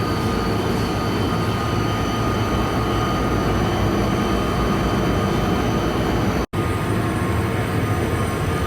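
Coal-fired ship's boiler-room draft fans running: a loud, steady machinery roar with a steady high tone through it, broken by a brief dropout about six and a half seconds in.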